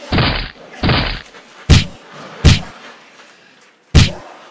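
Scuffling and sharp thuds of a staged fist fight between two men: two short rough bursts of struggle, then three separate sharp hits spread over the next few seconds.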